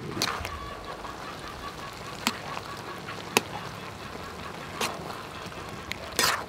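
Metal ladle clinking and scraping against a metal wok while egg and oyster mushrooms are stirred: several scattered sharp clinks, and a longer, louder scrape near the end.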